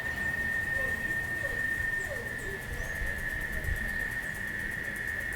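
Outdoor street ambience: a low, steady rumble of distant traffic under a single steady high-pitched tone that holds throughout, with a few faint short bird chirps.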